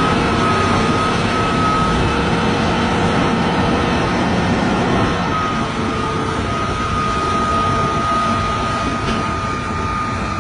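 Heavy forestry machine running steadily under load, a deep engine noise with a steady high-pitched whine over it.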